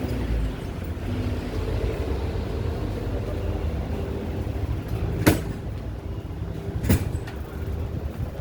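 Low, steady rumble of road traffic, with two sharp clacks about five and seven seconds in.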